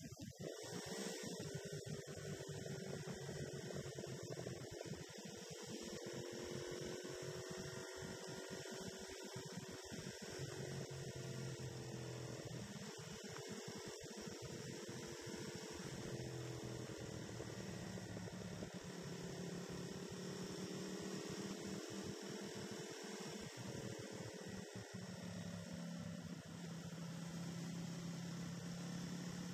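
Motorcycle engine droning steadily while riding, its pitch drifting gently up and down as the speed changes.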